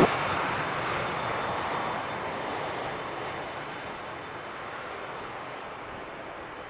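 Airplane engine noise, an even rushing sound with a faint high whine, fading gradually.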